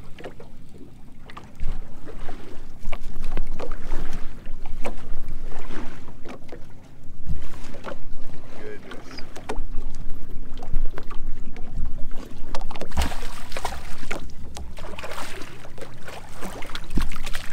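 Wind buffeting the microphone aboard a fishing boat on open water, with a low rumble that picks up about two seconds in. Scattered knocks and clicks run through it over a faint steady hum.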